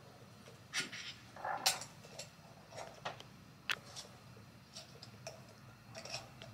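Scattered faint clicks and light taps, about a dozen at irregular intervals, the loudest a little under two seconds in, over quiet room tone.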